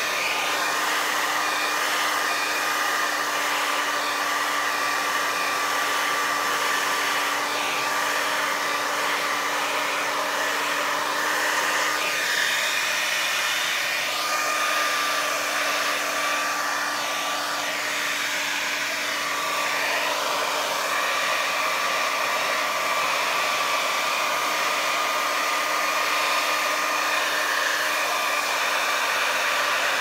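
Handheld hair dryer running steadily, a rush of air over a steady motor whine, blowing wet acrylic pour paint across a canvas.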